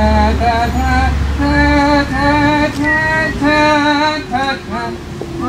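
Several melodicas played together in parts: a short tune of reedy held notes, each about half a second long. A low rumble runs under the first half and stops about halfway through.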